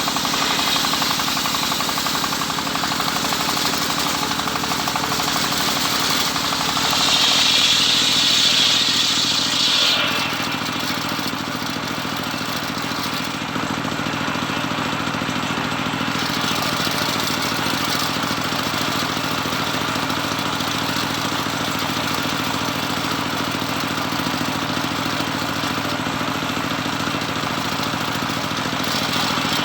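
Home-built circular saw ripping teak: the blade cuts through the wood for the first ten seconds with a high hissing whine that is loudest near the end of the cut. It then runs on steadily without load, its drive humming.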